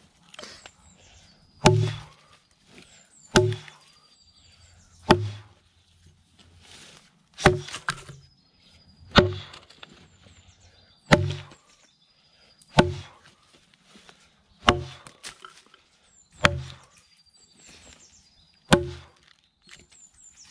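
Single-bit felling axe chopping into a log: about ten solid strikes, one every couple of seconds, each a sharp, hard thunk of the bit biting into the wood.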